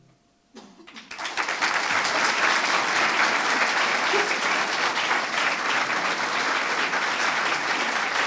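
Audience applauding: scattered claps begin about half a second in and swell within a second into full, steady applause.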